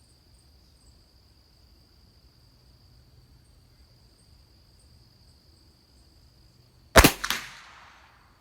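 A single .22LR rifle shot from a Christensen Arms Ranger about seven seconds in, followed by a short echo trailing off over about a second. Before it, only a steady high insect trill.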